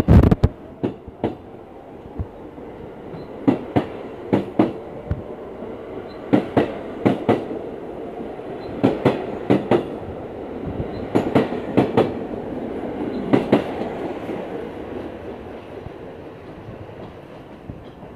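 R46 subway cars rolling past along the platform. The wheels clack over rail joints in quick pairs and groups every second or two over a steady motor whine, fading near the end as the train leaves.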